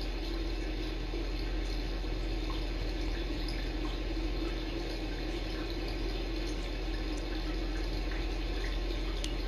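Steady hiss and low electrical hum of room noise picked up by a live-stream camera's microphone, with a few faint ticks.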